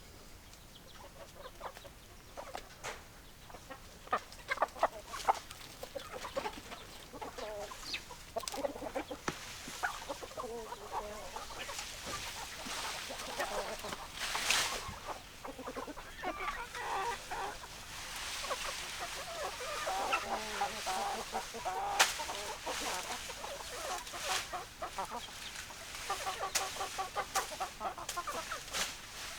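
Chickens clucking: many short, overlapping calls throughout, with a run of quick repeated clucks near the end and scattered sharp clicks.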